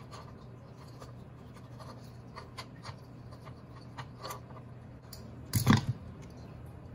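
A small plastic fan-lead connector being worked loose by hand: faint scratching and ticking of fingers on plastic, then a short, loud snap about five and a half seconds in as the tight connector pulls apart.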